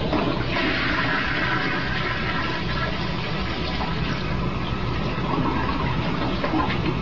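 Toilet flushing: a steady rush and swirl of water through the bowl that swells about half a second in. The flush is set off by a cat pushing down the handle on the tank.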